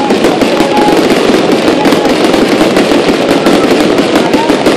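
Aerial fireworks going off in a loud, dense, unbroken crackle of many bangs.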